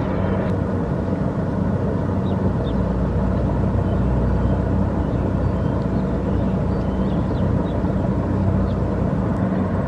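Kubota DC-70 Plus combine harvester's diesel engine running steadily under working load, a constant low hum.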